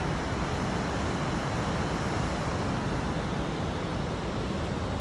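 River rapids rushing over rocks: a steady, unbroken noise of fast white water.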